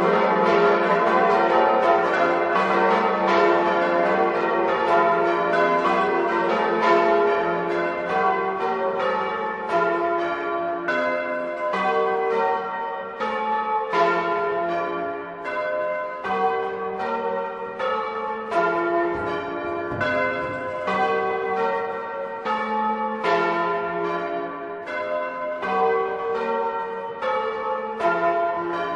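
Bolognese-style church bells ringing a peal: several bronze bells struck in quick succession, a few strokes a second, their ringing overlapping. The peal eases off a little partway through.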